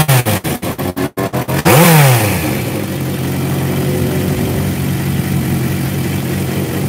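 Classic motorcycle engine blipped on the throttle in quick choppy bursts, then revved once hard with the pitch falling back, then settling into a steady idle.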